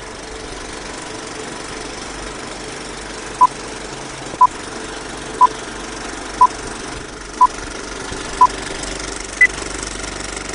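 Film-leader countdown sound effect: a movie projector's steady clatter and hiss, with a short beep once a second six times, then one higher-pitched beep near the end.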